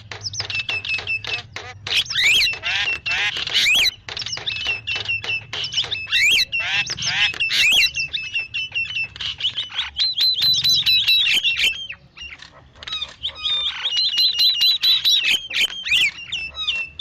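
Starling (jalak) calls used as a lure: a continuous stream of harsh chatters, whistled slurs and rapid rattling trills, with a short lull about twelve seconds in.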